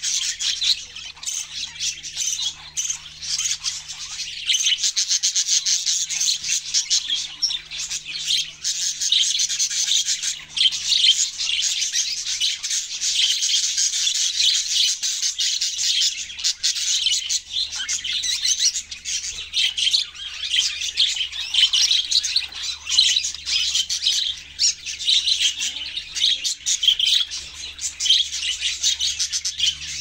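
Caged budgerigars chirping in a dense, rapid, unbroken stream of high chirps and squawks.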